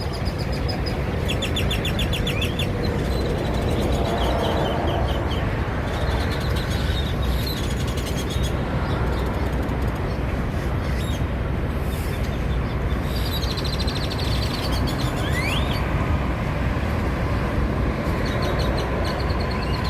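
Several birds calling: bursts of rapid rattling clicks and one rising whistle about fifteen seconds in, over a steady low rumble of idling engines.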